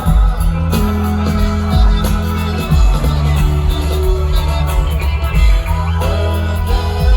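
Live rock band playing an instrumental passage: guitar lines over sustained bass notes, with little or no singing.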